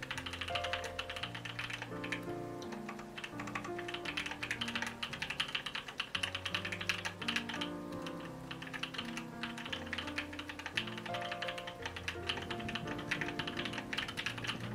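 Steady, fast typing on a Noxary Valhalla mechanical keyboard with Gateron Cream Soda linear switches on a 5mm polycarbonate plate, a dense run of keystroke clicks that eases off briefly twice. Calm background music with held low chords plays underneath.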